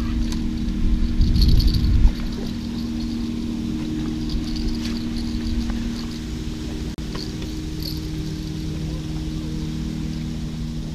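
A steady low engine drone runs throughout, with a heavy low rumble in the first two seconds that cuts off suddenly. Short high chirps of insects come and go over it.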